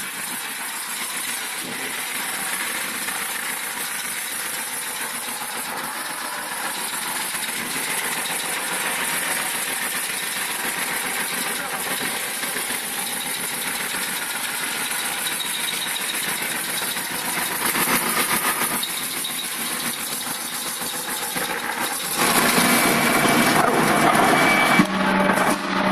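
TYS800 wood shaving machine running with a steady, hissy mechanical noise. About 22 seconds in it gets louder, and a steady high whine joins it.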